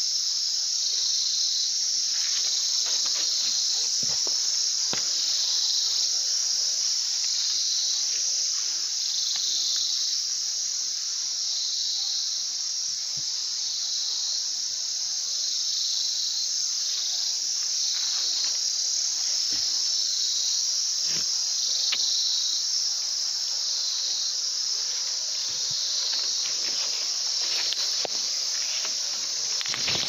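Dense, steady high-pitched chorus of field insects, with a pulsing note repeating about once a second.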